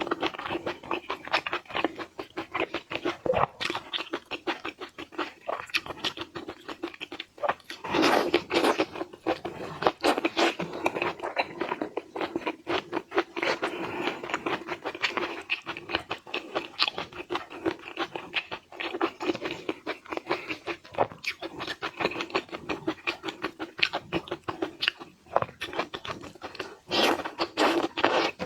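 Close-up eating sounds: seafood being bitten, crunched and chewed, in dense irregular crackles with louder bursts of crunching now and then.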